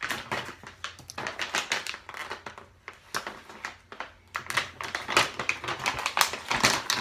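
Plastic packaging crinkling and rustling, with quick clicks and taps as new suspension bushes are taken out and handled, busiest over the last couple of seconds.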